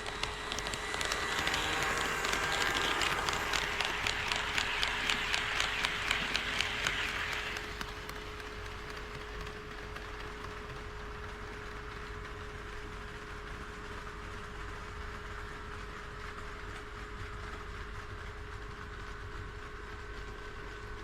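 HO-scale model train running past on sectional track, its wheels clicking regularly over the rail joints. The clicking grows louder about a second in and fades off about eight seconds in.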